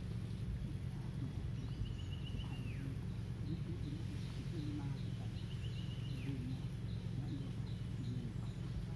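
A bird calls twice, each call a short high trill that ends in a falling slur, over a steady low rumble. Fainter short high chirps repeat about twice a second through the second half.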